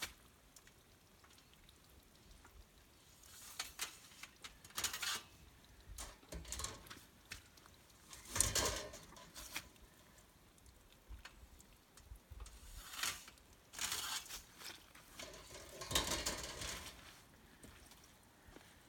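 Plastic baskets being pulled out of a wire rack and set down on a metal grating: an irregular run of scrapes, rattles and knocks, loudest about a third of the way in and again near the end.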